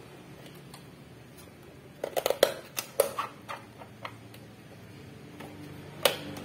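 Sharp clicks and knocks of a photocopier power supply board and its metal frame being handled by hand: a quick cluster of clicks about two seconds in, then a single click near the end.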